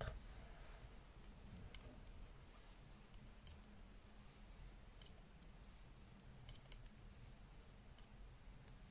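Faint clicks of metal knitting needles tapping together as stitches are knitted, a handful of them a second or so apart over near silence.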